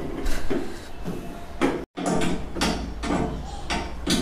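Metal clinks and knocks as the steel arms of an Ebco hydraulic bed lift-up fitting are handled against the wooden box bed while its gas spring is fitted in; a run of short, irregular knocks.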